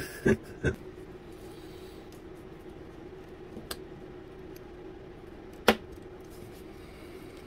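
A few light, sharp clicks of a hobby knife and the laser-cut plywood kit sheet being handled on a table, the sharpest about two-thirds of the way through, over a faint steady hum.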